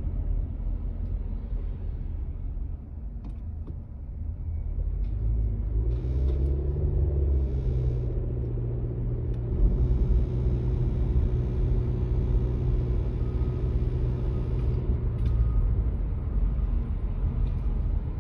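2019 Honda Civic EX with a low steady rumble of the running car. About five seconds in a steady buzzing hum comes in, rises a little in pitch, then holds before fading about fifteen seconds in. It is a mystery buzz that Honda dealerships have not been able to trace.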